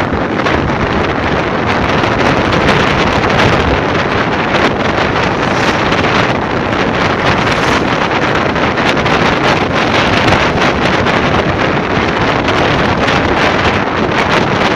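Wind buffeting the microphone of a camera moving along a road, a steady heavy rush over the low running noise of the vehicle carrying it.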